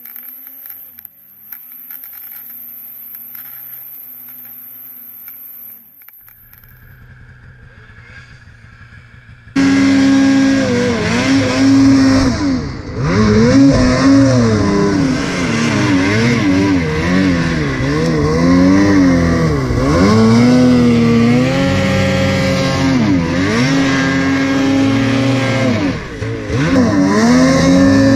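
Ski-Doo Freeride 850 snowmobile's two-stroke twin engine, quiet at first, then cutting in loud about a third of the way in and revving up and down again and again as the throttle is worked in deep powder.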